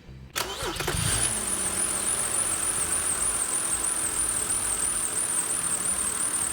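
BMW 3.0-litre straight-six cranked by the starter, catching within about a second and settling into a steady run, with a high, steady whine over it. It is the first start after the oil filter housing and oil cooler gaskets were resealed.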